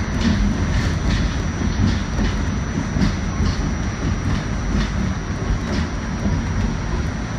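R46 subway car rolling along elevated track, with a steady running rumble and irregular clicks as the wheels pass over rail joints and switch points.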